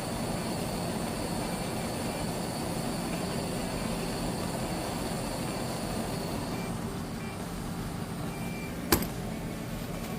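Steady mechanical rumble and hiss, with a faint high whine that fades out about two-thirds of the way through. A single sharp click comes near the end.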